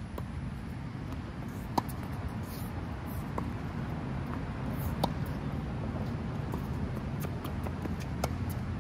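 Tennis rally on an outdoor hard court: sharp pops of the ball coming off the rackets, four clear ones over the stretch, with fainter ticks of bounces between, over a steady low rumble of background noise.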